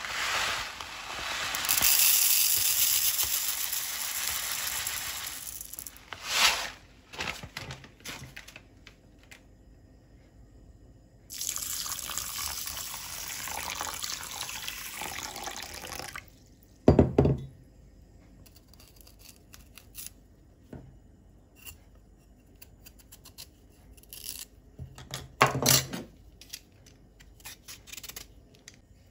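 Dry sago pearls poured from a bag into a wooden bowl, a steady hiss lasting several seconds. About halfway through, water is poured over the pearls for about five seconds. Near the end come a few short scraping strokes of a vegetable peeler on a sweet potato, with a knock or two on the counter in between.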